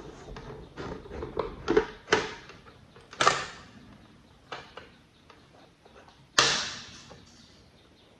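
Hard objects being handled and set down: a run of irregular knocks and clicks, with a louder knock about three seconds in and the loudest, sharpest one a little after six seconds, which fades out briefly.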